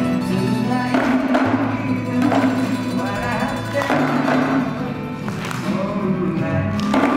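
Taiko drum performance: small hand-held drums struck with sticks about once a second, over music with singing.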